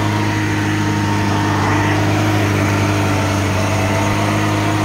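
Lada Niva's engine running steadily at an even pitch under load as the car crawls along a muddy dirt track in four-wheel drive with the differential lock engaged.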